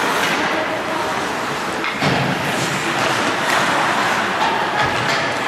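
Ice hockey rink during play: a steady din of skates scraping the ice, with a thud about two seconds in.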